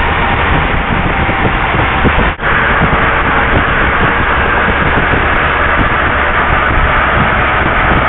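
Steady rush of wind over the microphone with motorcycle engine and road noise underneath, from a rider moving at speed. The sound drops out for an instant about two and a half seconds in.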